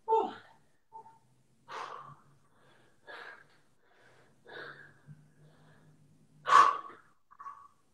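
A man breathing hard and out of breath from exercise: loud gasping breaths in and out about every second and a half, the loudest about six and a half seconds in.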